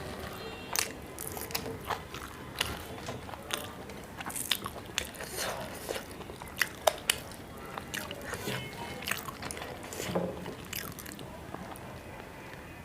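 A person chewing and biting a mouthful of rice, fish curry and raw green chilli close to the microphone: irregular wet mouth clicks and crisp crunches, a few each second.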